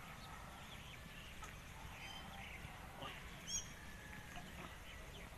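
Small birds chirping intermittently and faintly over a low steady background rumble, the loudest chirp about three and a half seconds in.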